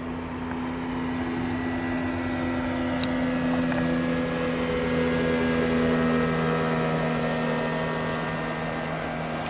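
A passing motorboat's engine running at a steady pitch, growing a little louder toward the middle and then easing off.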